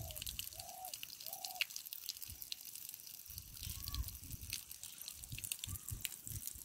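Thin stream of water trickling steadily from a hand pump's spout and splashing onto a stone slab, the pump flowing by itself with nobody working the handle. A few short animal calls repeat in the first second and a half.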